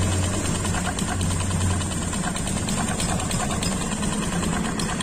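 Small motorcycle engine idling: a steady hum with fast, light, even ticking.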